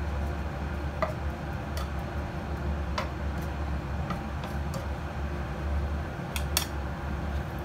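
Wooden spatula stirring in a nonstick frying pan, giving scattered sharp clicks and ticks, with a louder pair of clicks near the end, over a steady low hum.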